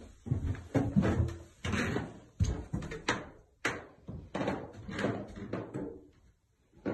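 Footsteps thudding on carpeted stairs and floor, about two steps a second, stopping shortly before the end.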